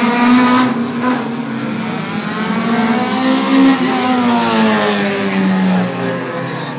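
Race cars' engines at high revs on a circuit, the pitch climbing slowly and then gliding down as cars accelerate and pass.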